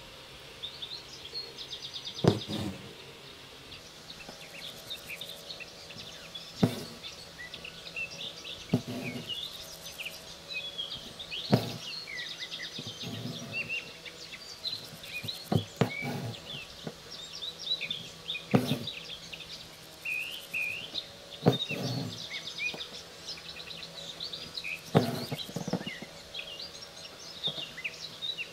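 Small birds chirping steadily, with a sharp pop every three to five seconds as the embroidery needle pierces the taut fabric in the hoop, and softer rasps of thread being drawn through between them.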